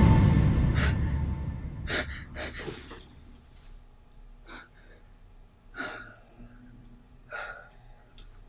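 A loud horror music sting dies away over the first few seconds. Then a woman breathes hard in short, irregular gasps.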